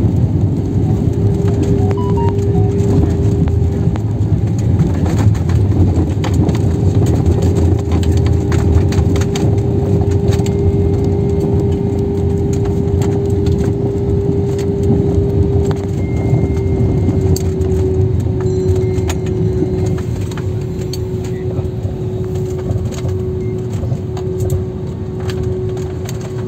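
Cabin noise of an Airbus A320-family jet on the ground just after landing: a steady low rumble with a steady hum of the jet engines, dropping slightly in pitch and level in the last third. Small clicks and rattles of cabin fittings come and go.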